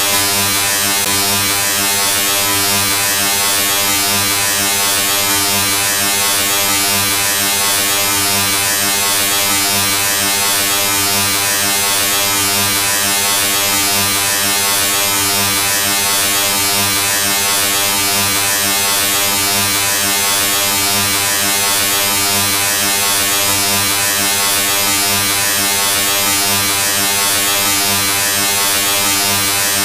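A steady, unchanging electric buzz with an even hiss over it.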